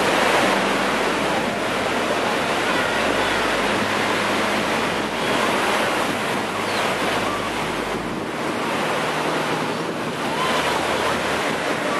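Atlantic surf breaking and washing onto a sandy beach, a steady rushing noise, with wind buffeting the microphone.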